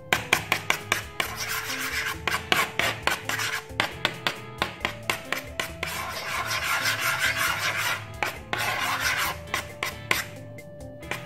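A metal spoon stirring and scraping thick, foamy dish-soap slime, a rubbing sound that swells for a few seconds past the middle. Background music with a steady beat plays along.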